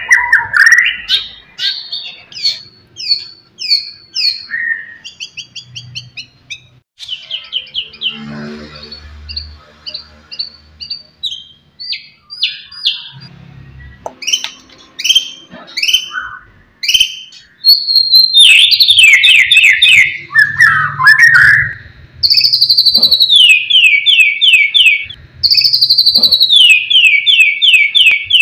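White-rumped shama (murai batu) singing a varied song of short whistled phrases and chirps. About two-thirds of the way through, it breaks into long, loud runs of rapidly repeated notes.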